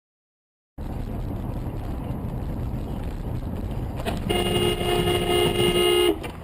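Steady road and engine rumble starts about a second in; midway a car horn sounds, held steady for about two seconds, then cuts off.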